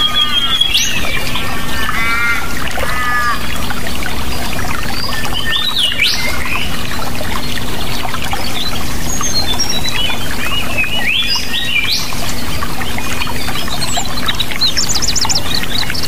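Several songbirds chirping and calling over steady running water: a string of arched, repeated calls in the first few seconds, a rising sweep about six seconds in, and a quick run of high chirps near the end.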